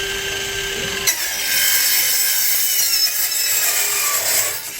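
Makita 18 V cordless metal-cutting circular saw whining at free speed, then biting into metal stock about a second in with a sharp tick. The cut is harsher and grinding, and the motor pitch sags slightly under load before the saw winds down near the end.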